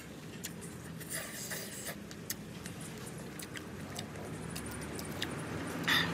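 Chewing and crunching of crispy fried noodles, with scattered sharp clicks of chopsticks against a metal wok and a stronger clink near the end. A steady low traffic rumble runs underneath and grows toward the end.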